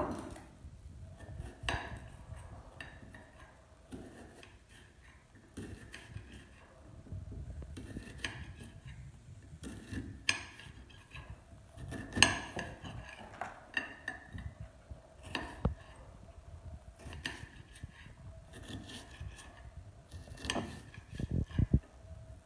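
Kitchen knife cutting an onion on a ceramic plate: irregular clicks and clinks of the blade striking the plate, with the sharpest knock about halfway through.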